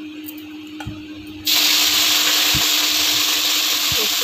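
Washed, still-wet chopped vegetables (potato, cauliflower, aubergine, green chilli) hitting hot oil and cumin in a kadhai: a loud, even sizzle starts suddenly about a second and a half in and keeps going.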